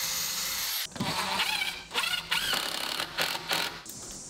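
A power drill runs steadily, driving a screw through the packers into the new window frame, and cuts off just under a second in. It is followed by a few seconds of separate short clicks and rattles.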